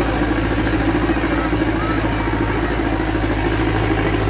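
Sonalika DI 750 tractor's diesel engine running steadily under heavy load as it drags a sandbag-weighted disc harrow, with crowd voices over it.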